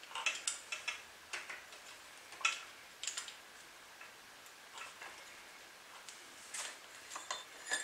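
Light, irregular metallic clicks and taps from the Hangkai 3.6 hp outboard's shaft and housing, worked by hand while the drive shaft is turned to line up with the prop shaft. A quick run of clicks comes at the start, then single clicks every second or so.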